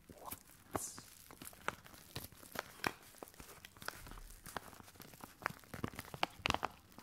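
Kraft-paper padded envelope crinkling and crackling as it is handled close to the microphone, a dense run of irregular sharp crackles with a few louder ones near the end.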